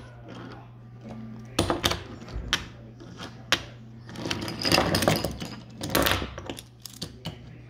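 Wooden toy train running along wooden track: a few sharp separate clicks, then a denser clatter of wheels on the track about four to six seconds in as the train comes near.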